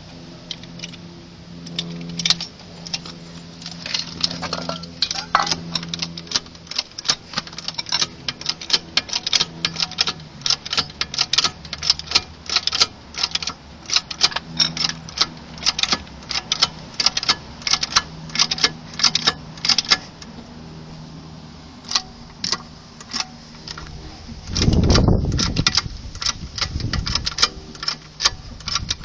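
Repeated sharp clicking from a VW Golf Mk4's front shock absorber as it is pushed and levered by hand, two or three clicks a second, thinning out later, with a loud low rumble about 25 seconds in. The owner takes this click, a shock only half a year old, for the source of the clicking heard when turning and over bumps.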